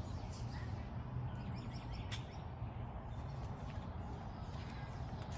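Steady low background rumble with no clear event, broken only by a faint click about two seconds in.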